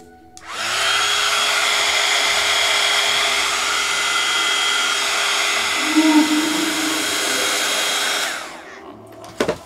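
Handheld electric heat gun switched on about half a second in, its fan blowing steadily with a thin whine, then switched off and spinning down near the end.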